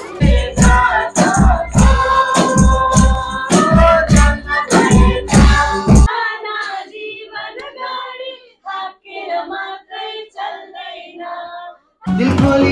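Songs with singing, cut together: first a loud song with a strong regular drum beat, then, about six seconds in, a sudden switch to a quieter stretch of singing with little bass, and loud music with a beat again near the end.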